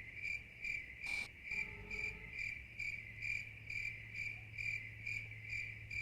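Cricket chirping: short, evenly spaced high chirps, about two or three a second, over a faint low hum, with one small click about a second in.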